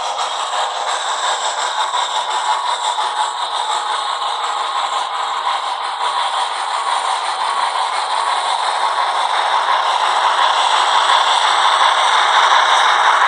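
Rivarossi H0 model of the Bavarian Gt 2x4/4 (class 96) Mallet steam locomotive running on a test run, its sound decoder playing steam-locomotive running sound through the small onboard speaker over the rattle of the model on the track. It grows louder over the second half.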